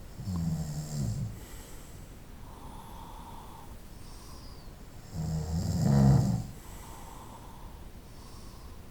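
A sleeping person snoring: two loud, low rasping snores about five seconds apart, the second louder, with softer breathing between them.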